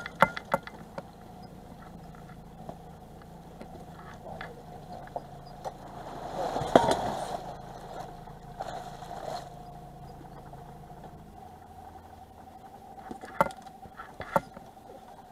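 A hooked fish splashing at the surface beside the boat about six to seven seconds in, the loudest sound, with a smaller splash a little later. Under it a boat engine idles steadily, and a couple of sharp clicks come near the end.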